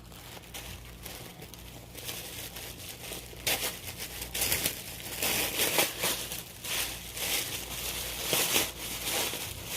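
Tissue paper rustling and crinkling as a wrapped gift is opened by hand. It is soft at first and then louder, in uneven rushes, from a few seconds in.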